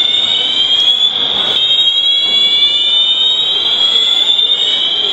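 Shopping mall fire alarm signalers sounding a continuous high-pitched electronic tone.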